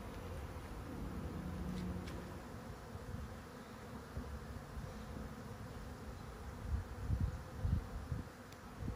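A mass of honeybees buzzing around a hive entrance, a steady faint hum, with a few low thumps near the end.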